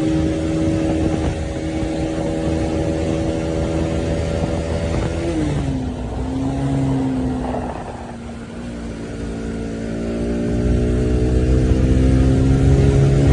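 Bajaj Pulsar NS200's single-cylinder engine running at speed: a steady note that drops in pitch about five seconds in, eases off, then rises steadily again as the bike accelerates.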